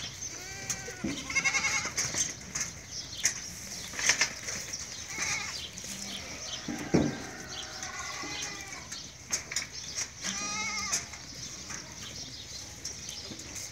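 A herd of goats bleating, one call after another and sometimes overlapping, several of the bleats with a quavering tremble. A few sharp knocks sound in between, about four and seven seconds in.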